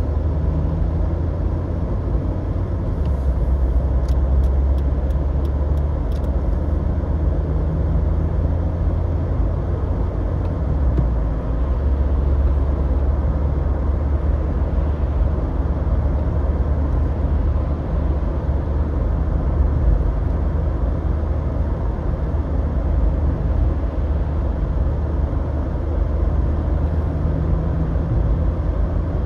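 A car driving on city streets: steady low engine and road-noise rumble, with a few faint clicks between about three and seven seconds in.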